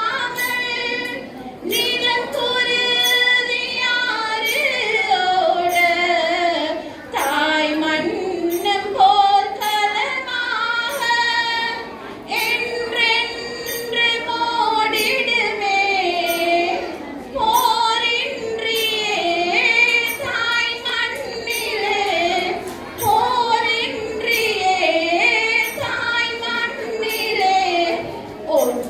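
A song with a woman singing over instrumental music, with a steady light beat.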